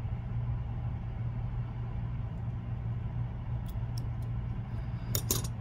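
Scissors snipping through a fly's rubber legs: a few sharp clicks, most of them close together near the end, over a steady low hum.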